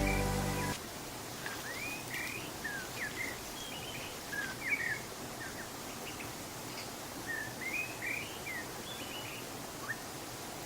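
Intro music cuts off under a second in, then wild birds chirp repeatedly in short rising and falling calls over a steady outdoor hiss.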